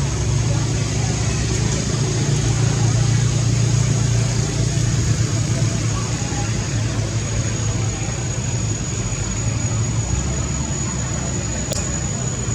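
Steady low engine-like rumble, as of a vehicle idling nearby, with a thin steady high-pitched whine over it and a brief tick near the end.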